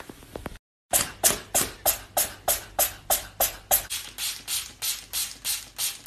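Trigger-spray bottle of air freshener pumped rapidly, giving a quick, even run of short hissing sprays, about three a second.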